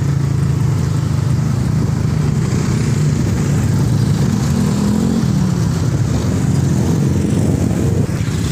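Motor scooter engine running steadily while riding along the road, its note rising briefly about halfway through.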